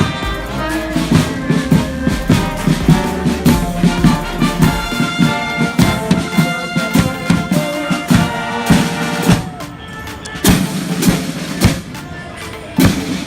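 Music with brass and drums and a steady beat, dropping quieter for a few seconds near the end before the drums strike again.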